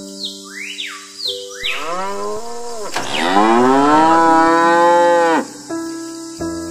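Cow mooing: two moos, the second longer and louder, held and then cut off about five and a half seconds in, over steady background music. A few short high chirps come before the first moo.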